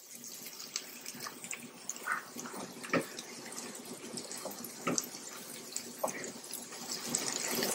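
Honey-lime sauce sizzling and bubbling around chicken breasts in a cast iron skillet, with scattered clicks and pops as the tongs move the chicken in the pan. The sizzle grows a little louder near the end.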